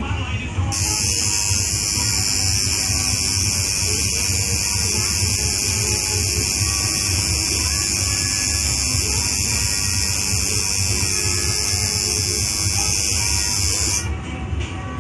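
Coil tattoo machine buzzing steadily as it works ink into skin. It starts abruptly about a second in and cuts off near the end.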